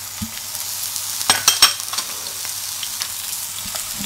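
Sliced Chinese sausage sizzling in hot oil in a non-stick frying pan, with a few sharp clicks on the pan about a second and a half in.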